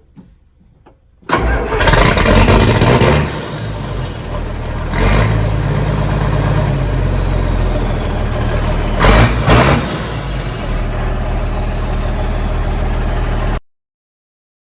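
John Deere 4440 tractor's six-cylinder turbo diesel starting about a second in on freshly fitted batteries, then running, with two brief louder surges of throttle. The sound cuts off suddenly near the end.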